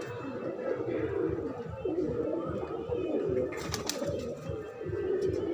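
A flock of domestic high-flyer pigeons cooing, many low coos overlapping without a break, a young male among them cooing.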